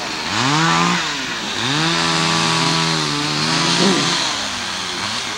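Chainsaw revving up and down in short throttle bursts, then held at high revs for about two seconds as it cuts through a downed tree trunk, before dropping back and revving again near the end.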